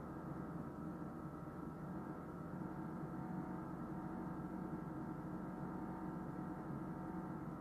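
A steady hum made up of several held tones, unchanging throughout.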